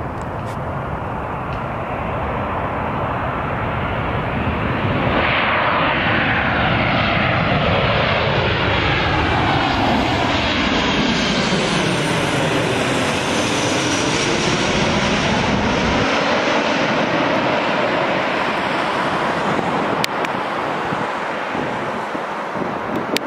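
Boeing 737-900 jet on final approach passing low overhead, its CFM56-7B turbofans running. The engine noise builds, sweeps down in pitch as the plane goes over, then slowly fades as it flies away to land.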